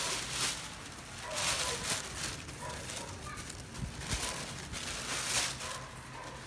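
Blue plastic bag and clear plastic shoe wrapping rustling and crinkling in repeated bursts as they are handled.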